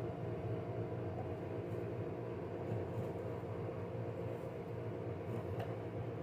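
A steady low mechanical hum, with a few faint light taps or scrapes over it.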